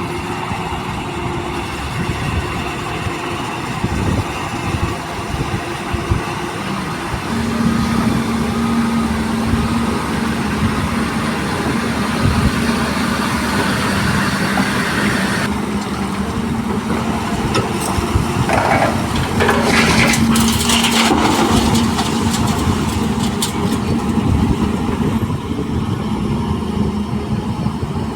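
Heavy diesel machinery of an excavator loading a dump truck, running steadily with a steady hum. A few knocks come around two-thirds of the way through.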